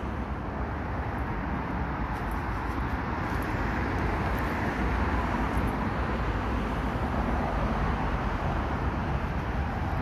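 Steady road traffic noise, growing a little louder over the first half.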